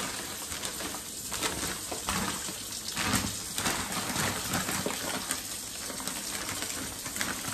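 Kitchen tap running into a steel sink, with plastic bag and paper wrapping rustling and crinkling in irregular bursts as they are pulled open.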